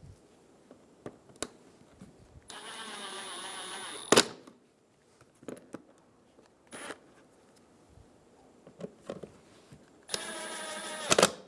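Small electric screwdriver driving Phillips head screws into the power window switch. It runs twice, each time for about a second and a half with a steady whine, and each run ends in a sharp click as the screw seats. Light clicks and handling taps come in between.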